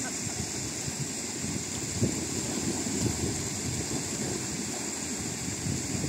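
Wind buffeting the microphone in low, uneven rumbles, over the wash of river water and a steady high hiss.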